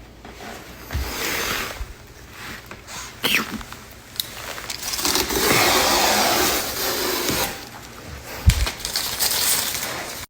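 Wooden template strips being handled and set back onto the cabinets: scraping and sliding, with a few knocks, the longest scrape about five seconds in.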